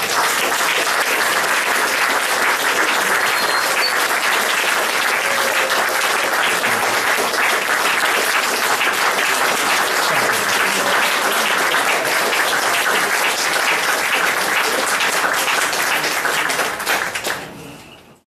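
Audience applauding: dense, steady clapping from a crowd that starts at once, holds evenly, then fades and cuts off near the end.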